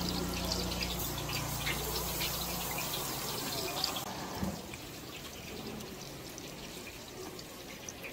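Sauce-glazed boneless chicken thigh skewers sizzling and crackling on a grill grate, with a low steady hum beneath. The crackle and hum die down about halfway through, leaving a softer hiss.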